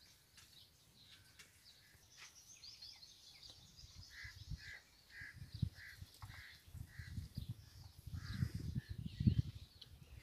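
A bird calling in a steady run of short calls, about two a second, starting about four seconds in, over faint high chirping of other birds. Low thumps and rumble grow louder in the second half.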